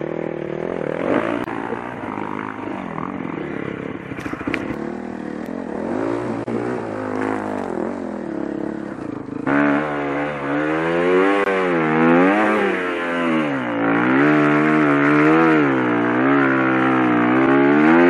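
Dirt bike engine being ridden on a trail, its revs rising and falling over and over as the throttle is worked. About halfway through it gets suddenly louder and clearer.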